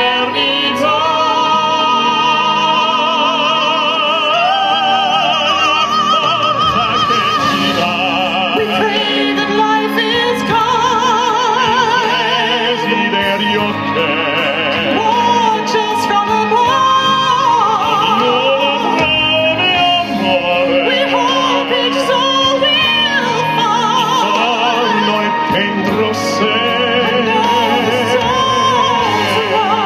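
A man and a woman singing an operatic-style duet ballad, their voices often overlapping in two parts with wide vibrato, over musical accompaniment.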